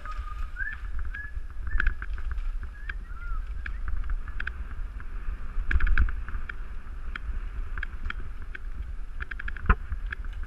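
Wind buffeting the microphone of a bicycle-mounted camera over a low road rumble as the bike rolls along, with scattered clicks and rattles and one sharp knock near the end.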